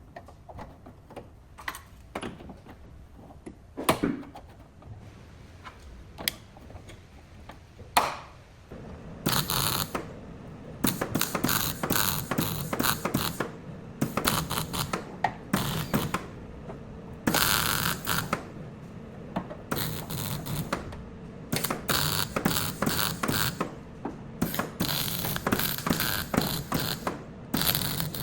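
Hand-tool work on car body parts: a few separate sharp clicks and knocks, then from about nine seconds in a dense, uneven run of clicking, clattering and scraping.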